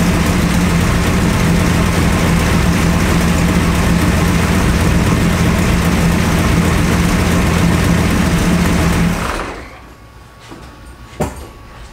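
Third-generation Chevrolet Camaro engine idling steadily, then switched off about nine seconds in. A single sharp knock follows near the end.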